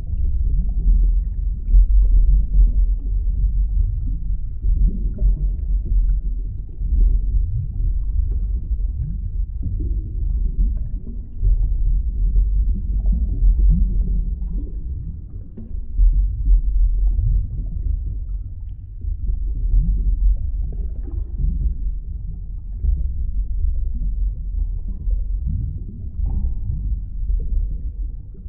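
Underwater ambience: a deep, muffled rumble that swells and fades every few seconds, with short upward-sliding gurgles now and then.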